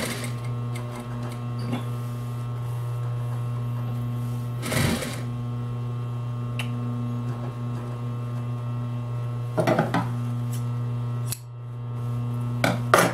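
Consew 230 industrial sewing machine running on denim: a steady motor hum, with a few short, louder bursts about five, ten and thirteen seconds in. The hum briefly drops about eleven seconds in, then comes back.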